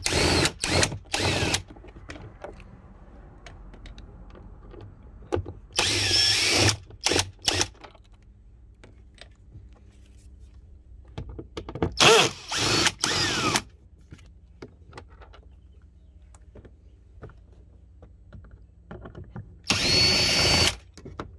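Power drill with a Torx T30 bit backing out four bracket bolts: four short runs of the motor, each a second or two long and several seconds apart, some broken into quick stop-start pulses.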